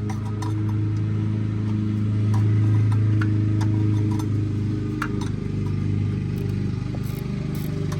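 A steady low machine drone, with scattered sharp metallic clicks from wrenches tightening engine bracket bolts.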